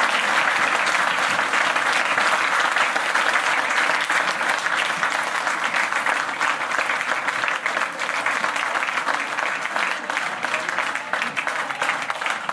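Audience applauding: dense clapping that slowly thins out and grows quieter toward the end.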